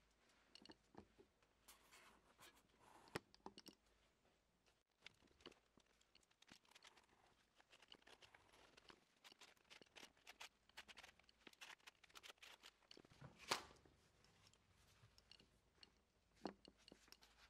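Faint, irregular rustling, scraping and clicking from sealing tape being handled and pressed by gloved hands onto a waterproofing membrane on the wall, with a sharper snap about three-quarters of the way through.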